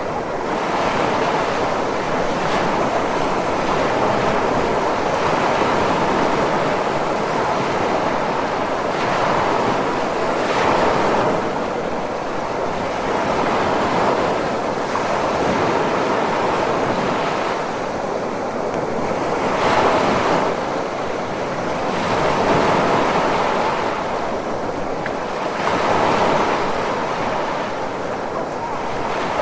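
Ocean surf: a continuous rushing wash of waves that swells and eases every several seconds as waves break, with a few louder surges.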